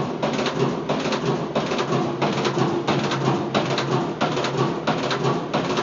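2002 Whirlpool washing machine running, with a steady, even rhythm of about three pulses a second, likened to the lope of a big-cam engine.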